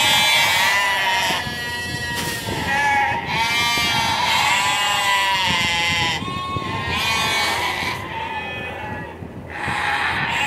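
A flock of sheep and lambs bleating, many overlapping calls back to back without a break.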